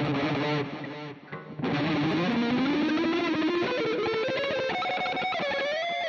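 Electric guitar played through the Mooer GE 150 multi-effects on its 'Carol Lead' factory preset, an overdriven lead tone. A chord rings at the start, then after a short gap a line of notes climbs steadily in pitch and settles into a long held note near the end.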